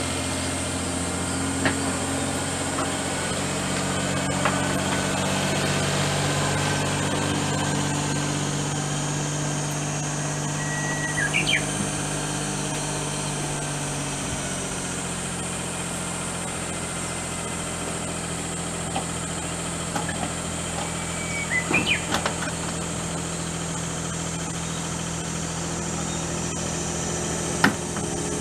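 Small truck engine idling steadily, its note shifting slightly about halfway through. Brief high chirps come twice, and there is a sharp click near the end.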